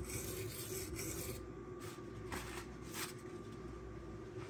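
Magnacut steel knife blade being ground on a silicon carbide sharpening stone: quick rasping strokes that stop about one and a half seconds in, followed by three short separate strokes. The edge is being ground to raise a burr.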